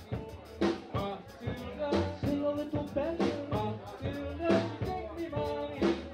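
Live band playing an upbeat number: drum kit keeping a steady beat of about two strikes a second under electric guitar and sustained pitched notes.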